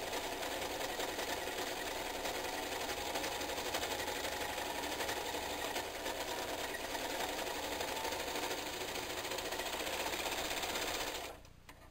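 Serger (overlock sewing machine) running steadily as it stitches through thick layers of towel, then stopping abruptly near the end.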